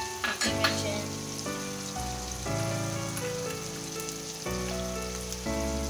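Chicken and spices frying in oil in a pan, a steady sizzle, under background music of held notes that change about twice a second. A few sharp clicks come about half a second in.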